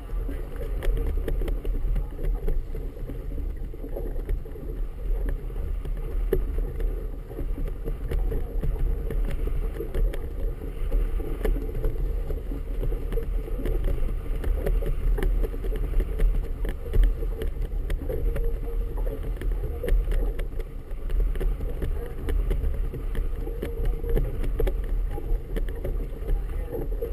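Wind rumbling and buffeting on a boat-mounted GoPro Hero 2's microphone, with choppy harbour water slapping and splashing irregularly around the boat.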